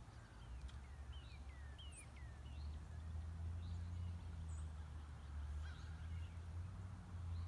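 Birds calling faintly: a run of short downward-slurred chirps in the first couple of seconds, then a few scattered fainter ones, over a low steady rumble.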